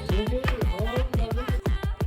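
Background music with a fast, steady beat of deep drum hits that drop in pitch, under a melody line.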